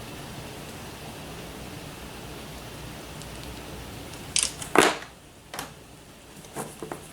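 Steady hiss of heavy rain, then a few sharp clicks and knocks of handling, the loudest a little under five seconds in, after which the rain sounds much quieter.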